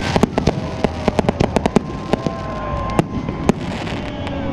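Aerial fireworks display: a rapid string of sharp cracks and pops from bursting shells, dense for the first two seconds and then thinning to a few single louder reports.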